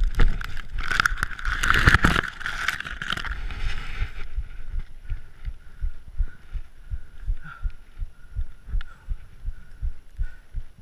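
Bicycle ridden over a rough track at night: a loud clattering rush for the first few seconds, then quieter, with regular low thumps as it rolls on.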